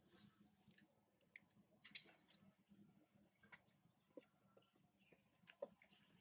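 Faint, scattered clicks and crackles of dry leaves and twigs as macaques move over leaf litter, over a quiet outdoor background.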